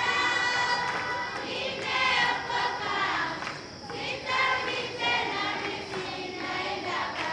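A group of secondary-school students singing an evening prayer together in chorus, in long held phrases with short breaks between them.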